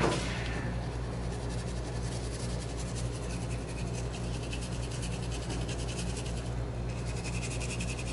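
Damp toothbrush bristles scrubbing the carved, rusticated briar of a tobacco pipe in quick short strokes, a soft scratchy rubbing, over a steady low hum.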